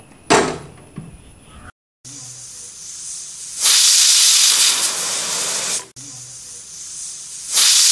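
A short knock, then a small aluminium pressure cooker on a gas burner venting steam through its weighted whistle. A steady hiss swells into a loud steam blast for about two seconds, cuts off, and a second blast begins near the end. These are the pressure-release 'whistles' used to count cooking time.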